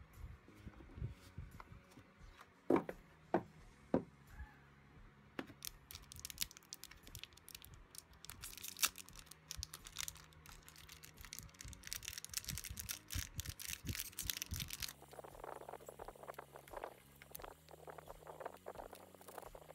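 Hands handling paper album inserts and card on a wooden table with a few light knocks, then crinkling a small clear plastic bag holding metal binder screws, a dense run of crisp crackles. From about three-quarters of the way in, a softer rubbing and scraping of hands sliding over the album's card cover.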